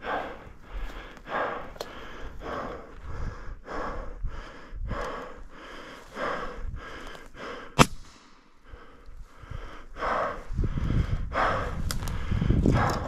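A person breathing hard in quick, even breaths about once a second. A single sharp click comes a little past halfway, and a low rumble near the end.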